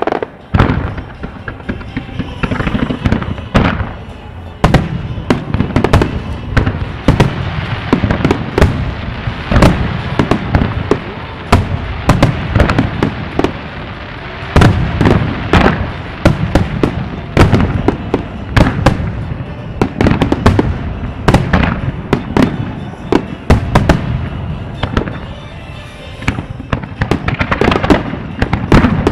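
Starmine fireworks barrage: a dense run of aerial shells bursting one after another, sharp bangs and crackles with only brief lulls, set to music from the venue loudspeakers.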